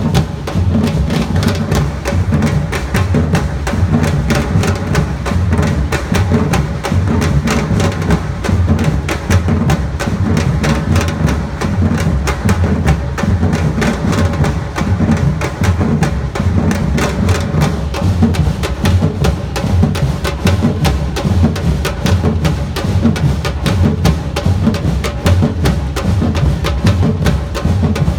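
A samba-reggae percussion band playing loudly: deep bass drums with snares and higher drums in a steady, dense, driving rhythm.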